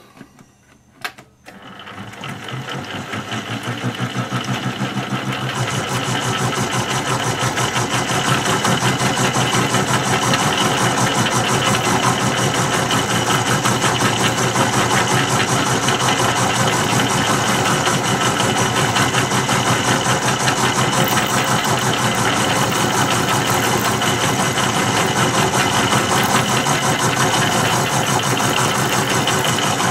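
Bench milling machine starting up with a click about a second in, the sound building over the next several seconds, then running steadily as its dovetail cutter cuts a metal block, with a fast, even pulsing from the cutter's teeth.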